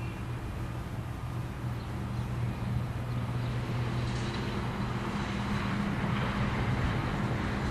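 Van's RV-8 single-engine propeller plane at full power on its takeoff roll and climb-out, heard from a distance as a steady engine drone that grows somewhat louder about halfway through.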